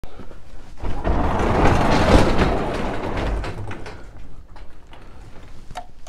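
Manual overhead garage door pulled open by hand, rolling up its tracks with a loud rumble for about three seconds, then fading into a few light clicks and knocks.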